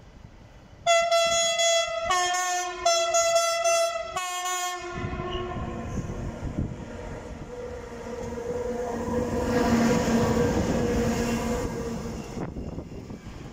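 SNCB class 13 electric locomotive's two-tone horn sounding for about four seconds, switching high, low, high, low. The locomotive and its freight train then roll past with a building rumble and a steady low hum that cuts off near the end.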